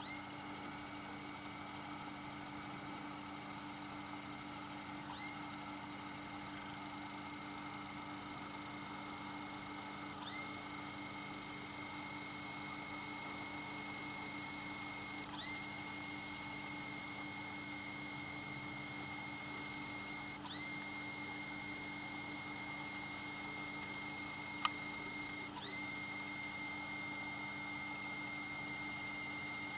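APC 500 UPS giving off a steady high-pitched electronic whistle over a low hum. About every five seconds the whistle cuts out for an instant and comes back with a quick upward slide in pitch.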